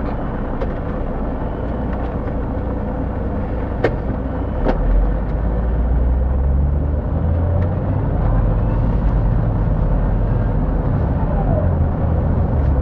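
City bus heard from inside: the diesel engine runs at a stop, two sharp clicks come about four seconds in, then the engine rumbles louder as the bus pulls away and accelerates, its low note shifting a few times.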